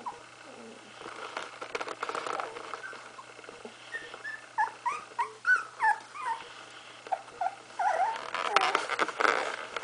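Two-week-old puppies whimpering: a run of short, high squeaks that bend up and down, bunched in the middle and again near the end, over some rustling.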